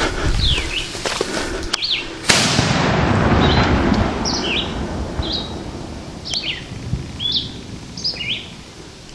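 A 20-gram firecracker goes off with a single sharp bang a couple of seconds in, followed by a long echo that slowly fades. Birds chirp repeatedly throughout.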